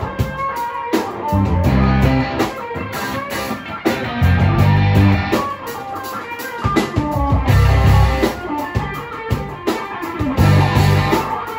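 Live rock band playing: electric guitars and electric bass over a drum kit, with heavy bass notes recurring every couple of seconds.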